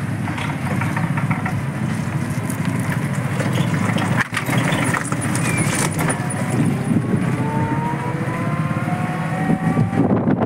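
Auto-rickshaw engine running as it drives along the street. A whine rises slowly in pitch over the second half.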